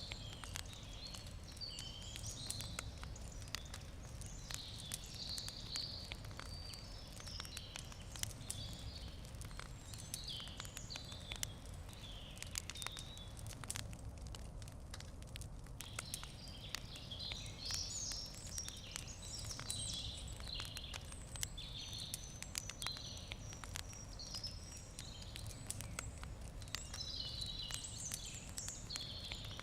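Wood campfire crackling with many small sharp pops, while birds chirp in the background, pausing briefly about halfway through.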